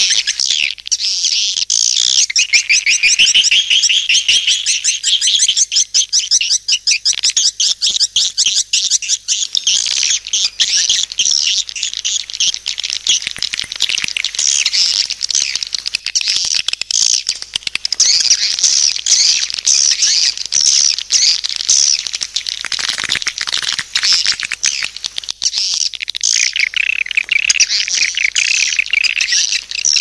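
Swiftlets twittering: a dense, unbroken stream of rapid, high-pitched chirps, the kind of swiftlet call recording played to lure swiftlets into a nesting house.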